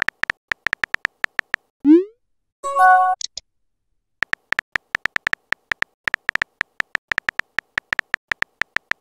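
Texting-app sound effects: a run of quick, even keyboard tap clicks as a message is typed, then a rising whoosh about two seconds in as the message is sent and a short chime as the next one appears. After a brief pause the tap clicks resume at a steady rate as the next message is typed.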